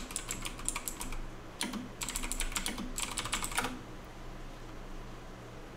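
Fast typing on a computer keyboard in three quick runs of key clicks, stopping about three and a half seconds in; after that only a faint steady hum remains.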